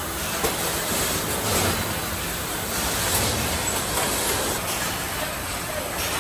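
Car assembly-line factory noise: a steady mechanical din of machinery with a few faint clanks.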